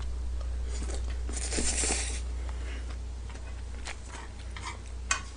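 A mouthful of yaki udon noodles slurped in with one noisy draw lasting about a second, a little over a second in, followed by a few light clicks of wooden chopsticks against the griddle pan.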